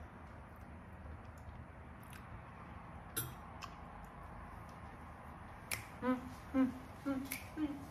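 A woman humming a bouncy tune through closed lips, short 'mm' notes about two a second, starting about six seconds in; before that only faint room tone and a soft click or two.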